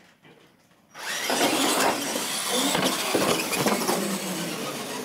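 Two radio-controlled monster trucks launching about a second in and running flat out side by side on a hard floor: electric motors and gears whirring loudly and steadily.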